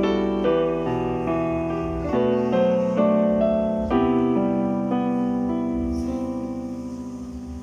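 Slow piano chords played on a digital keyboard's piano sound, struck about once a second. The last chord comes about four seconds in and is left to ring and fade away.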